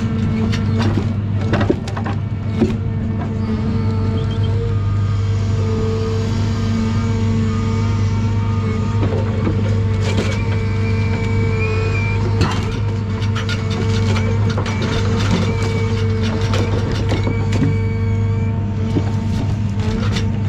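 John Deere 1010G forwarder running steadily under crane work, with a steady hydraulic whine over the engine's low drone. Logs knock and thud against one another several times as the grapple loads them.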